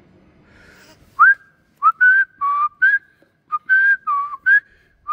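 Someone whistling a tune: a run of about eight clear, breathy notes stepping up and down, starting about a second in.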